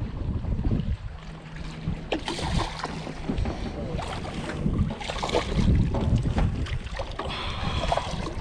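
Wind rumbling on the microphone over lapping water, with several splashes as a small hooked snook thrashes at the surface and is grabbed by hand.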